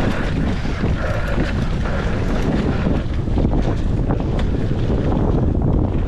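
Wind rushing over the camera microphone on a fast downhill mountain-bike run, with tyre noise on the dirt and frequent clicks and rattles from the bike.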